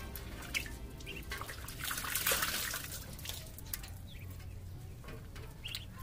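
Muscovy ducklings splashing and paddling in a shallow metal tray of water, with small drips and slaps and a bigger splash about two seconds in. A few brief high peeps are heard.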